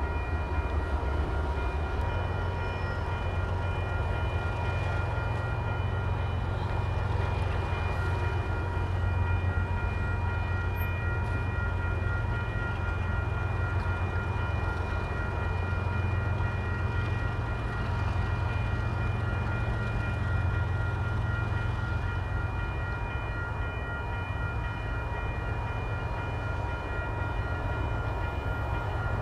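Railway level-crossing bell ringing steadily over the low, even rumble of diesel locomotives running at idle.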